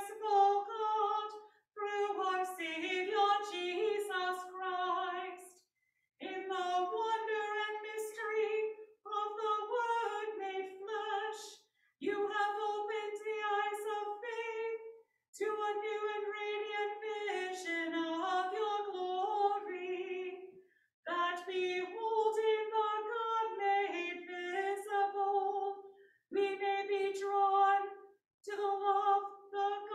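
A woman's solo voice chanting the communion liturgy unaccompanied. She sings in phrases of a few seconds on a mostly level pitch, with short breaks between them.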